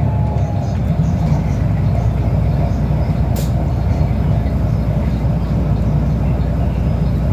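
Bus engine running and road noise heard from inside the passenger cabin, a steady low rumble. A single sharp click sounds about three and a half seconds in.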